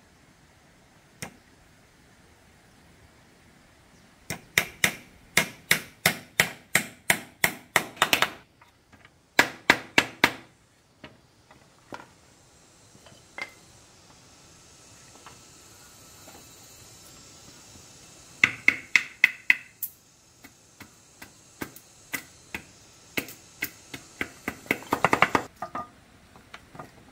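A hand tool chopping into wood on a wooden block: runs of sharp knocks about three a second, broken by pauses, quickening into a fast flurry near the end.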